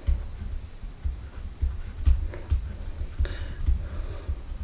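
Irregular quiet taps and clicks over low knocks, from handwriting being entered on a digital whiteboard.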